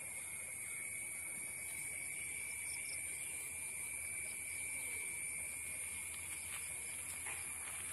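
Steady, unbroken drone of insects, a very high hiss layered over a lower whining tone, with a few faint ticks near the end.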